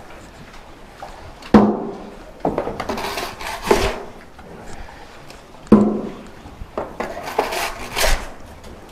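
A shovel scooping pig manure out of a concrete gutter into a metal wheelbarrow. There are two sharp knocks with a short ring, each followed by about a second of scraping.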